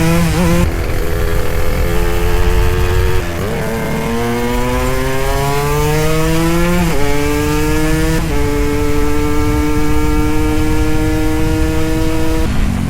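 Suzuki Satria 120 two-stroke single-cylinder motorcycle engine accelerating up through the gears: the pitch climbs, falls sharply at upshifts about three and seven seconds in, then holds steady at speed before falling again near the end.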